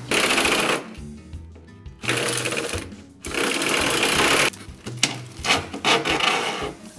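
Cordless drill boring through a kitchen cabinet's back panel in several bursts that start and stop abruptly: a short one at the start, a longer run from about two seconds in to about four and a half seconds, then shorter bursts. Background music runs underneath.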